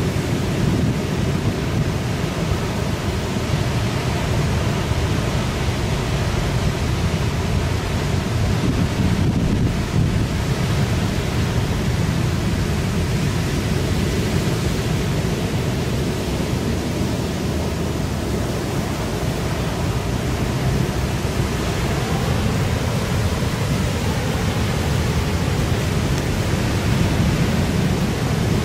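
Strong wind from an approaching typhoon buffeting the microphone over heavy surf: a loud, steady, deep rushing noise with no breaks.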